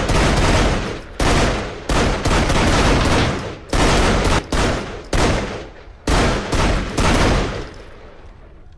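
Several pistols fired in quick, overlapping shots on an indoor shooting range, each shot ringing on in the room's echo; the firing stops about seven seconds in and the echo dies away.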